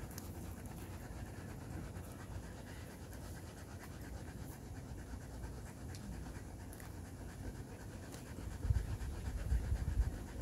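A dog panting close by, with a few low thuds or bumps in the last couple of seconds.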